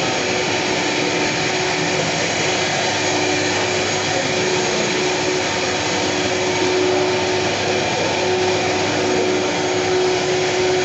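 Steady drone of CNC machinery running in the workshop, an even whirring noise with a constant hum tone and no break or change.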